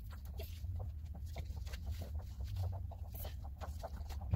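A dog eating a treat from a hand, chewing and licking with irregular wet mouth clicks and smacks.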